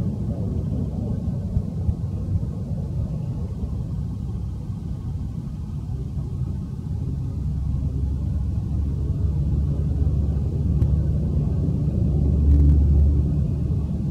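A steady low rumble that grows louder in the second half and swells most near the end.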